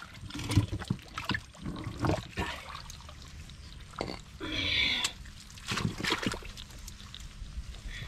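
Wet mud and shallow water being disturbed at a crab burrow: irregular splashes, squelches and trickling, with a longer splash about four and a half seconds in.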